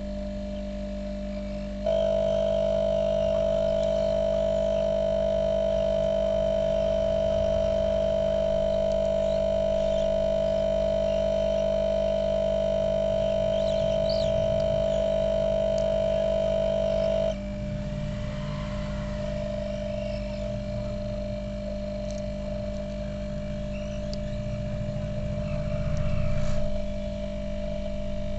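Hot air rework gun blowing with a steady hum while heating a phone board's metal shield to free it. The hum gets louder, with a stronger whine, from about two seconds in, then drops back sharply about fifteen seconds later.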